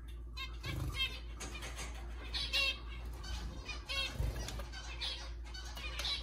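Zebra finches calling: a run of short, repeated chirps, several a second at times and loudest about two and a half seconds in, over a low steady hum.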